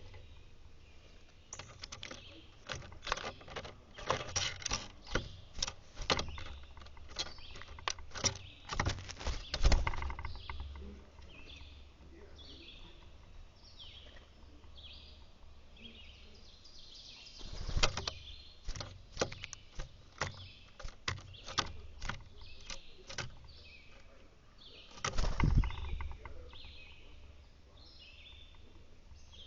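Birds chirping in short, high calls, with bursts of sharp taps and knocks close to the microphone. The knocks are the loudest sounds and come in clusters: through the first ten seconds, again around the middle, and once more briefly near the end.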